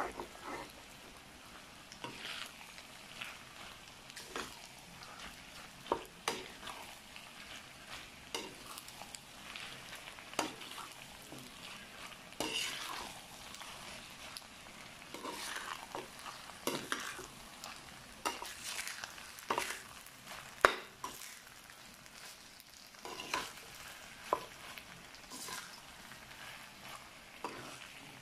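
Slotted metal spatula stirring and tossing macaroni in tomato sauce in a metal pan: irregular scrapes and clinks of metal on metal, about one every second or so, over a faint sizzle.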